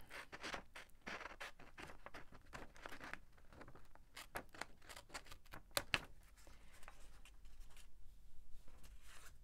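Sheets of paper being handled on a cutting mat: scattered light rustles and small clicks, with one sharper click about six seconds in.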